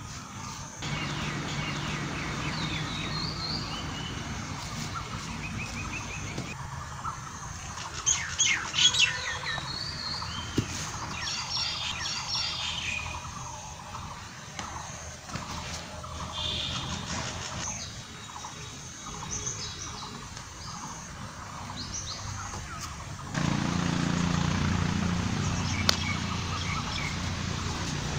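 Many small birds chirping and calling in quick, high-pitched phrases, busiest in the middle stretch, over a steady low background hum. A single sharp knock sounds near the end.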